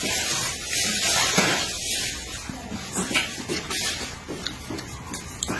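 A person eating close to the microphone: a long airy slurp for about the first two seconds, then chewing with short wet smacks and clicks.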